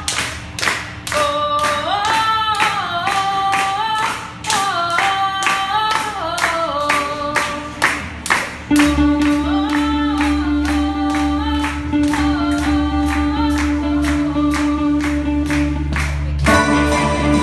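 Steady rhythmic hand-clapping, a little over two claps a second, with singing over it from about a second in. A low held note joins about nine seconds in, and a rock band with electric guitars and drums comes in near the end.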